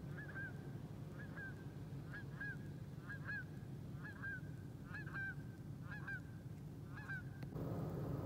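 Faint goose honking: short, rising-then-falling honks, often in pairs, about once a second, stopping shortly before the end, when a louder steady background noise comes in.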